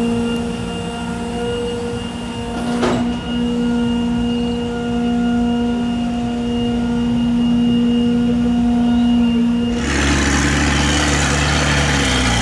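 Engine running at a steady speed with a constant pitch. About ten seconds in it gives way abruptly to a lower, rougher engine sound with a loud rushing hiss.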